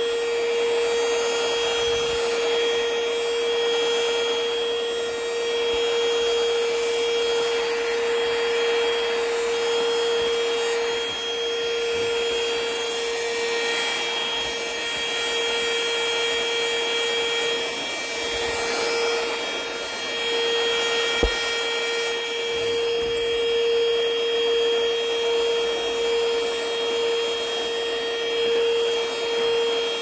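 Perysmith K2 cordless stick vacuum running steadily, a constant motor whine over rushing air, as its floor head is pushed over tiles sucking up spilled flour. One brief sharp click about two-thirds of the way through.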